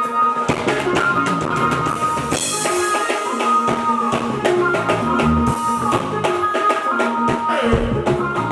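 Instrumental band music with no vocals: a drum kit keeps a steady beat with kick, snare and rimshot hits, under a bass line and held keyboard chords.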